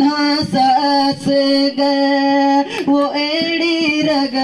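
A singer's voice, amplified through a microphone and loudspeaker, holding long drawn-out notes of an Urdu devotional song, with short breaks between phrases.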